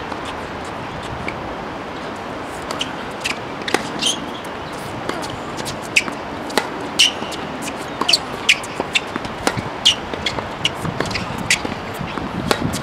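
Tennis balls hit by racquets and bouncing on a hard court: a string of sharp pops, irregular, a few a second from about two seconds in, some loud and some faint.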